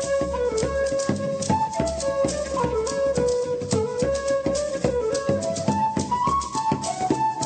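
Instrumental break in a folk-style song: a high melody line moving in steps over a steady rhythm of percussion strikes, with no singing.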